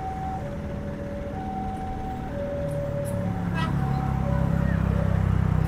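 Railway level-crossing warning alarm, two steady tones alternating, each held about a second. From about three seconds in, a diesel train's engine grows louder as it approaches.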